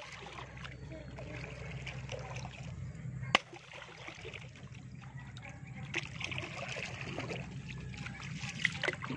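Water trickling and splashing around a small boat being paddled one-handed through shallow, weedy water, with a sharp knock about a third of the way in.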